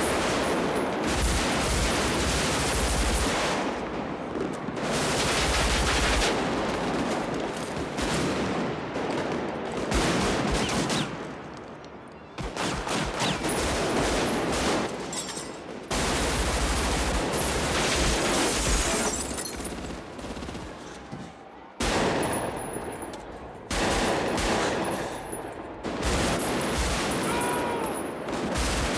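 Heavy automatic rifle fire from several guns, long rapid bursts overlapping one another, with two short lulls, about a third of the way in and again about three-quarters through.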